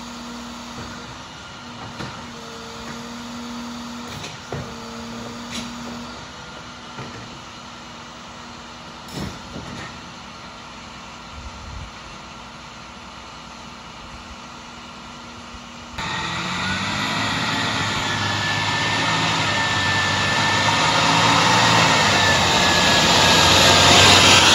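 An International garbage truck with a Labrie Expert side-loader and MaxxForce diesel stands running while its hydraulics whine in short spells and a cart knocks, then runs more quietly. About two-thirds in, the diesel is suddenly much louder as the truck drives up, its engine and tyres growing louder.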